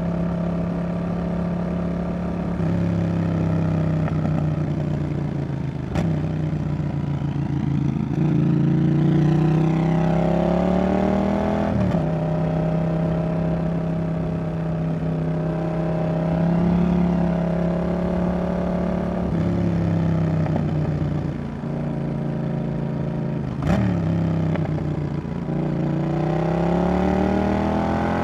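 Yamaha XSR700's 689 cc CP2 parallel-twin engine through a Roadsitalia aftermarket exhaust, heard on board while riding. It holds a steady note, rises in pitch under acceleration about eight seconds in, drops suddenly at a gear change, and rises again near the end, with a couple of short sharp clicks along the way.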